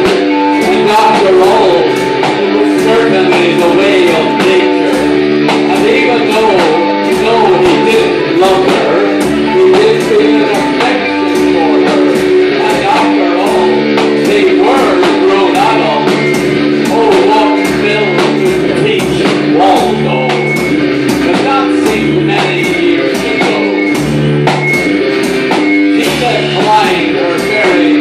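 Live rock band of two electric guitars and drums playing a repetitive instrumental groove over a steady drum beat.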